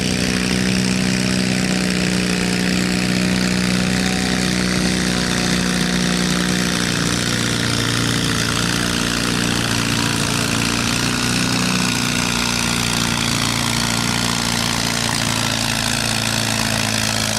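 Twin-cylinder garden tractor engine running steadily at high speed under load while pulling a weight-transfer sled, its pitch holding nearly constant with a slight shift partway through.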